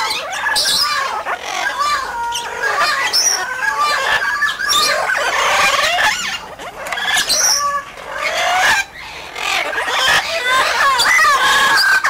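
Amazon parrots calling at close range: a loud, almost unbroken run of squawks and chattering calls that bend up and down in pitch, with a couple of brief pauses in the second half.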